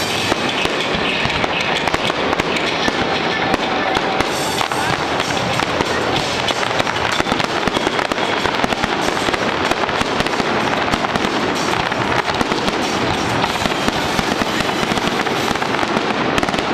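Aerial fireworks display: shells bursting in a dense, continuous run of bangs and crackles with no pause.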